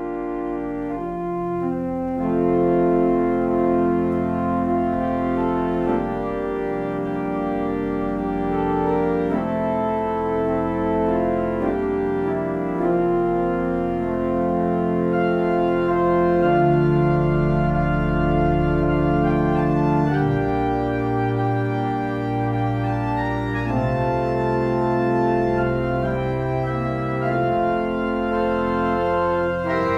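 Church organ playing a slow piece of full, held chords that change every second or two over sustained bass notes.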